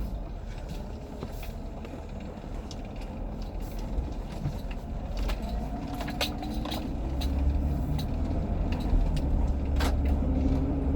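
2004 Jeep Grand Cherokee pulling away and accelerating, heard from inside the cabin: low engine and road rumble that grows louder, with a rising drivetrain pitch from about halfway through and a few sharp clicks.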